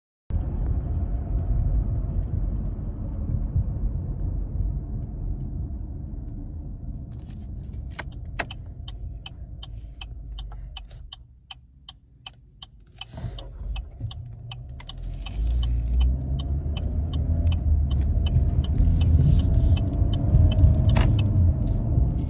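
Chevy Malibu driving on a test drive with freshly replaced front brake pads: a steady low road and engine rumble that drops off about halfway through, then rises again. A regular clicking, about two a second, starts about a third of the way in.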